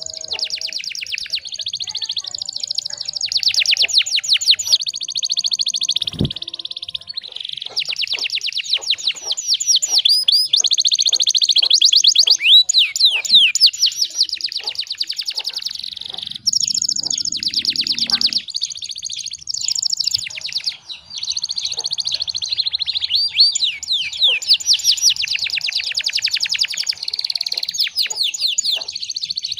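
Domestic canary in full, vigorous song: a long, almost unbroken high-pitched song of fast trills and rolls, one rapid run of repeated notes after another. A single low thump comes about six seconds in.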